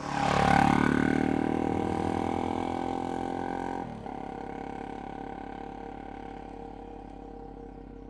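Suzuki DR-Z400 single-cylinder four-stroke dual-sport motorcycle passing close by, its engine note dropping in pitch as it goes past. The engine then fades steadily as the bike rides away, with a sudden step down in level about four seconds in.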